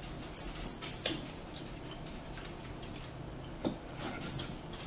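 A person eating potato salad off a fork, close to the microphone: wet mouth clicks and chewing, with a cluster of sharp clicks in the first second or so and a few softer ones near the end.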